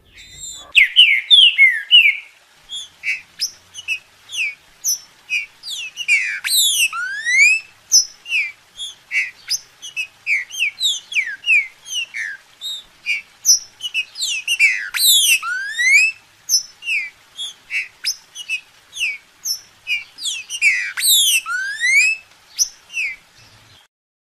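Green-winged saltator (trinca-ferro) singing: a long run of short, clear whistled notes. About every seven seconds comes a louder phrase of quick down-sweeping notes ending in a rising whistle. The song starts about half a second in and stops shortly before the end.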